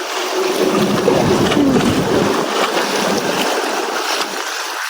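Sea water washing and breaking against a rock wall, a steady rushing noise with wind on the microphone, easing slightly near the end.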